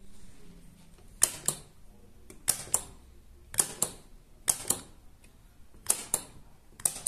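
Momentary push-button light switches pressed over and over, about once a second, six times in all. Each press gives a pair of sharp clicks, one as the button goes down and one as it springs back. Each pulse steps the impulse relay, switching the bulb on and off.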